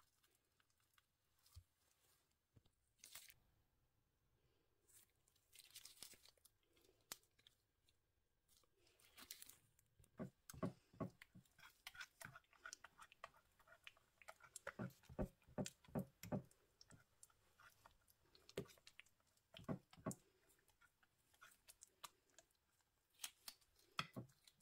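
Sliced banana being handled into a plate, then mashed with a metal fork: a run of quick clicks and taps of the tines against the plate, densest in the middle stretch, with soft wet crushing sounds.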